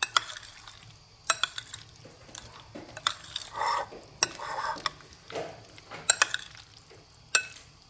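A metal spoon stirring chopped strawberries and cubes of set jelly in a glass bowl: soft wet stirring with sharp clinks of the spoon against the glass every second or two, a quick cluster of them near the end.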